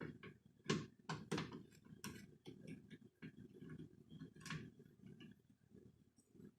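Irregular light clicks and knocks, several in the first half and a sharper one a little after the middle.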